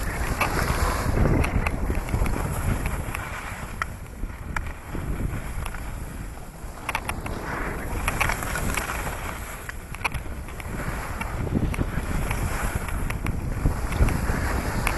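Wind buffeting the microphone, rising and falling in gusts, with a few sharp clicks.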